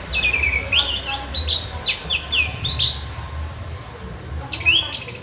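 Orange-headed thrush singing: a run of quick slurred whistles, many falling in pitch, with a held higher note and scratchy rapid notes, then a dense burst of notes near the end. A low steady hum runs underneath.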